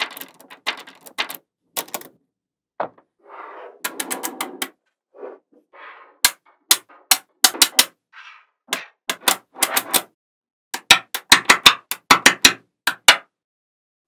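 Small magnetic balls clicking sharply as they snap onto one another, in irregular single clicks and quick clusters. A few seconds in there are short stretches of rattling as balls roll and slide against each other.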